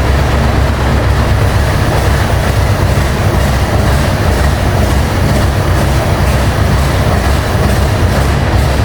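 Scania 143's 14-litre V8 diesel engine running steadily with a deep, even rumble.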